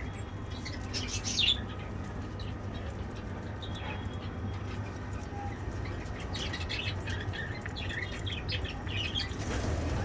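Small birds chirping in short, scattered bursts, loudest about a second in and again through the last few seconds, over a steady low hum.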